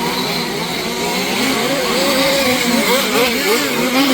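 Several large-scale 1/5 RC off-road cars' small two-stroke petrol engines racing together, their pitches rising and falling over each other as they rev and back off.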